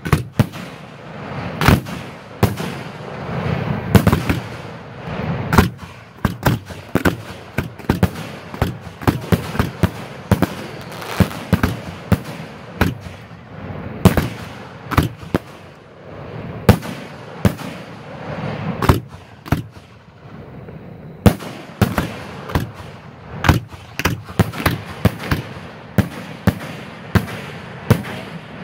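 Fireworks finale barrage heard at the firing site: aerial shells launching from ground mortar racks and bursting overhead in rapid succession, sharp bangs several a second, with a brief lull about twenty seconds in before the barrage resumes.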